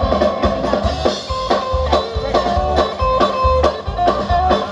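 Live band playing on an amplified outdoor stage: guitars strummed over a drum kit keeping a steady beat.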